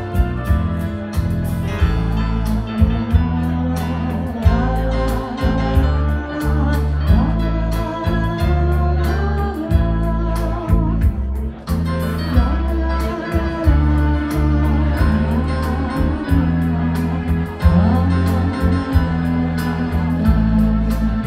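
A woman singing a Finnish-language song into a microphone over an instrumental backing with a heavy bass, played through a venue's PA.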